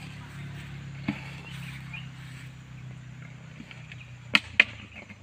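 Two sharp knocks in quick succession a little after four seconds, a metal snake hook striking the plastic jar a cobra is being shaken out of, with a fainter knock about a second in. A low steady hum sits underneath and fades away.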